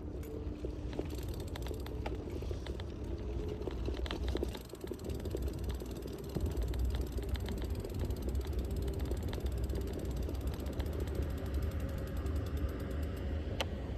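Bicycle freewheel ticking rapidly while coasting, over a steady low rumble of the ride.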